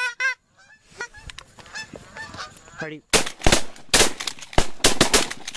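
Honking on a hand-held goose call, then from about three seconds in a rapid volley of shotgun blasts from several hunters, roughly eight shots in two and a half seconds, fired at geese coming in over the decoys.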